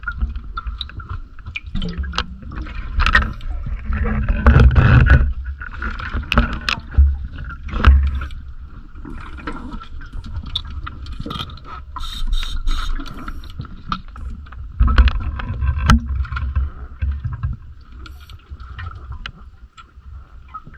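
Diver's breathing heard underwater on a closed-circuit rebreather: low rushing breath sounds every few seconds, with scattered clicks and knocks of gear and a faint steady high hum.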